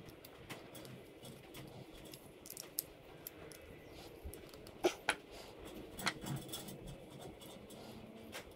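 Small scattered clicks and ticks of a small screwdriver and tiny screws being worked into a servo mount bracket by hand, with a few louder clicks a little past the middle.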